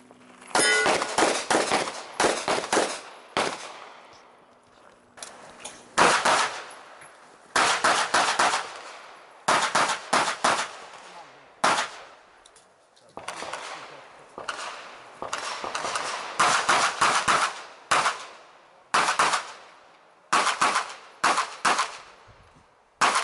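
Rapid pistol fire: quick strings of several shots, each string followed by a short pause, the shots trailing off in echo across the range.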